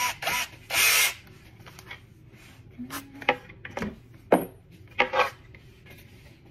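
Cordless drill driving a screw into the chair's plastic seat in a short burst about a second in, followed by clicks and knocks as the drill is set down and the seat is handled.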